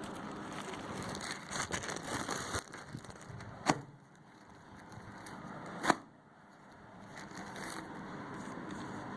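Plastic packaging crinkling and rustling as it is handled and torn open, with two sharp snaps about four and six seconds in.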